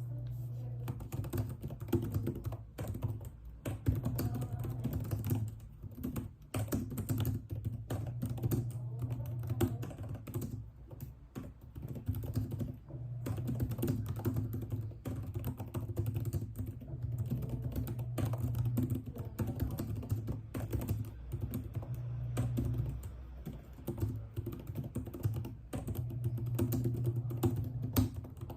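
Typing on a computer keyboard: a fast, uneven stream of keystrokes with brief pauses, over a low hum that comes and goes.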